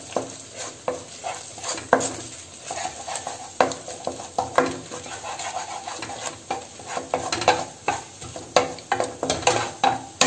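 Wooden spatula scraping and tapping against a nonstick kadai while stirring eggs scrambling with sautéed vegetables, in irregular strokes several times a second. Steady sizzling of the eggs frying in oil runs underneath.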